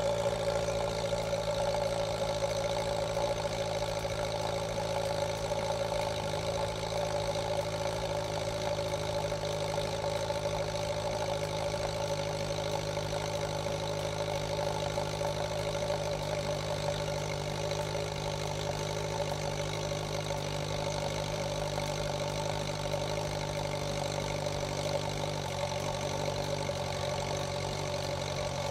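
2018 Honda CB1000R's inline-four engine idling steadily from cold, still warming up, with the high, loud idle that quiets down once the engine is warm.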